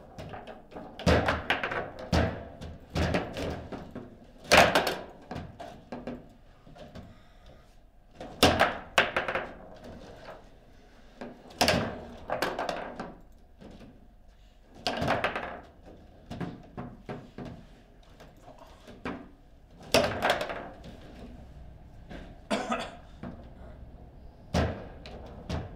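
Table football (foosball) in play: the hard ball knocks and cracks off the plastic rod-mounted players and the table walls, and the rods clack as they are snapped. Irregular sharp knocks come every second or so, with several much louder bangs among them.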